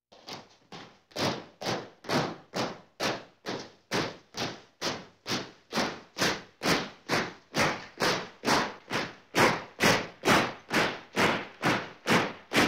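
Marching feet stomping in a steady rhythm, a little over two steps a second. The first two steps are faint, and the stomps are louder from about a second in.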